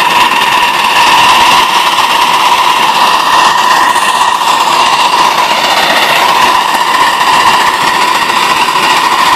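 Live-steam 2-4-0 miniature locomotive running under load while hauling a train of riding cars: loud, continuous running noise with a steady high whine over it.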